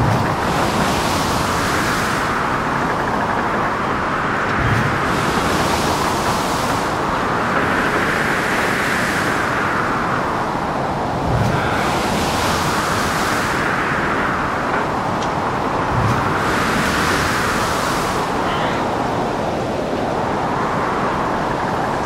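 Storm at sea sound effect for a boat in heavy weather: continuous wind and rough water, swelling and easing every five or six seconds as waves surge. Three dull low thuds come about a third, halfway and three-quarters of the way through.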